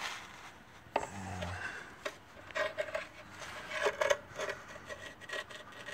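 Needle-nose pliers scraping and knocking against the old rear main seal of a Jeep Cherokee XJ engine as the seal is worked out from around the crankshaft, in a string of short, irregular scrapes with a sharp click about a second in.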